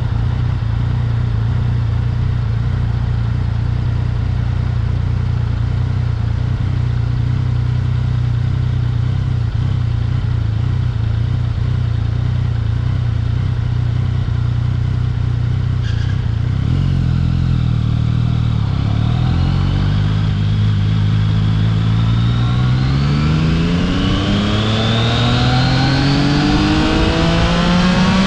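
Yamaha XSR900's three-cylinder engine running at a steady speed, then about two-thirds of the way through the revs dip and climb in a long rising pull under acceleration. A steady rush of wind and road noise runs underneath.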